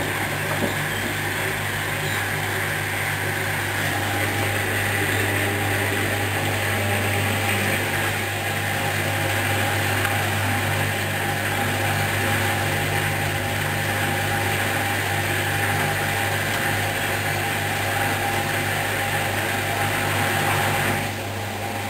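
Hoover washing machine on its second intermediate spin at 800 rpm: a steady motor hum with a higher whine from the spinning drum. The sound drops slightly near the end.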